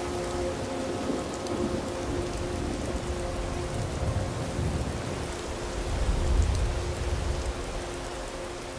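Rain and thunder ambience: a steady hiss of rain with low thunder rumbles swelling about four seconds in and, louder, around six to seven seconds in, under a few faint held tones.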